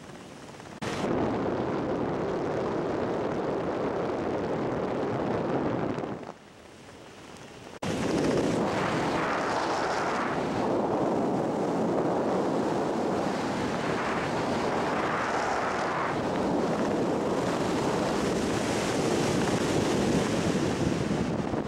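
Wind rushing over the jumper's camera microphone during a parachute descent under canopy, a steady loud rush that drops away twice, briefly near the start and for a second or two in the middle, before coming back sharply.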